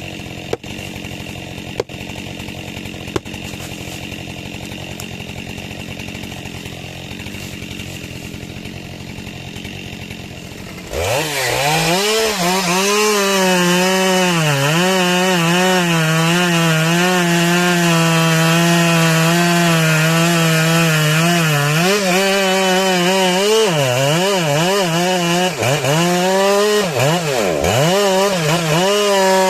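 A small engine running steadily for the first eleven seconds, with a few sharp clicks. About eleven seconds in it jumps to a loud, high-pitched run. Its pitch wavers and dips several times near the end.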